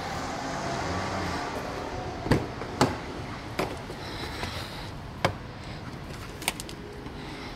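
A BMW estate's driver door being opened: two sharp clicks from the handle and latch a little over two seconds in, then a few lighter knocks as the door swings open. A steady background hiss runs underneath.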